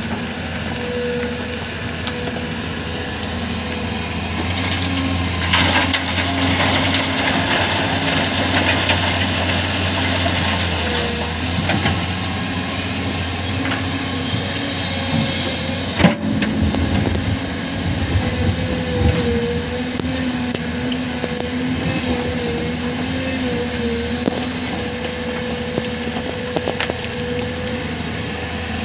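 An excavator's diesel engine working steadily, holding a constant tone. Rock scrapes and clatters through the middle stretch, and one sharp knock comes about sixteen seconds in.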